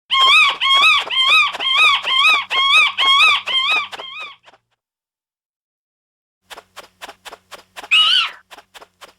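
Bats squeaking: a rapid run of high, chirping squeaks, about three a second, that stops after about four seconds. After a pause comes a quick string of clicks, with one louder squeak among them near the end.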